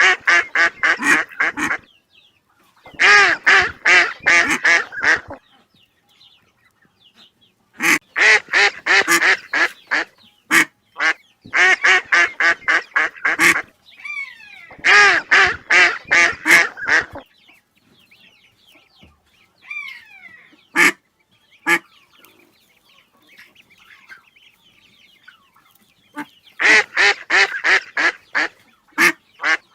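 Ducks quacking in runs of rapid calls, about four a second. The runs come in bouts of two to three seconds with short pauses between, and there are a few fainter gliding calls in the quieter stretch past the middle.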